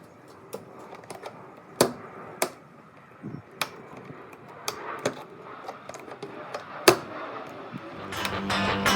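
Metal glad-hand air-line coupling and its rubber seal being handled, giving irregular sharp clicks and knocks, the loudest about two seconds in and about seven seconds in. Guitar music comes in near the end.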